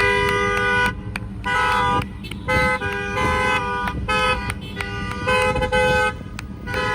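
Several car horns honking over and over, short toots and longer blasts overlapping one another.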